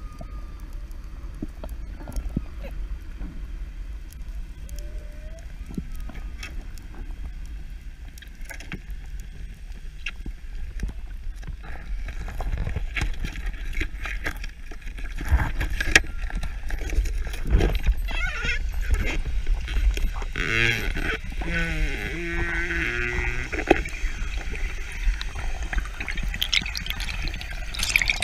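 Underwater sound through an action camera's housing on a breath-hold dive: a steady low rumble of moving water with scattered clicks and crackles. The clicks get busier from about twelve seconds in, and a short warbling pitched sound comes around twenty seconds in.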